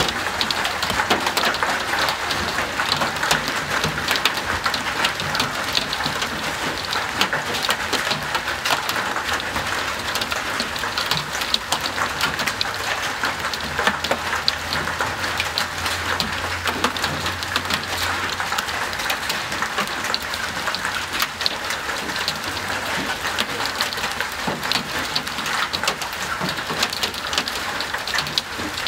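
Large hailstones pelting down in a severe thunderstorm: a dense, continuous clatter of countless impacts over a steady rain hiss.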